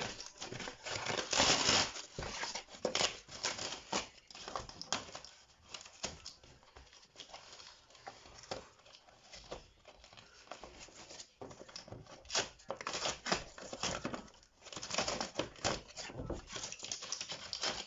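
Cardboard and plastic packaging being torn, rustled and crumpled in irregular bursts while flat-pack furniture is unpacked, with occasional knocks of panels and parts being handled.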